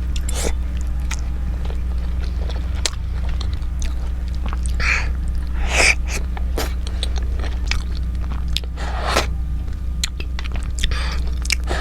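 Close-up eating sounds of a person biting and chewing food, in scattered short mouthfuls over a steady low electrical hum.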